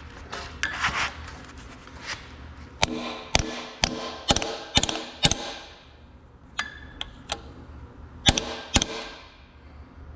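Hammer blows ringing on metal, a quick run of about six, then a few lighter taps and two heavy blows near the end: the new axle seal being driven into the Clark axle housing. Before them comes some scraping and rubbing of metal parts.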